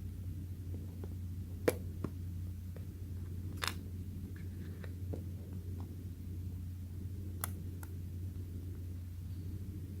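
A few sharp little clicks and taps of small phone parts and tools being handled on the bench, over a steady low hum.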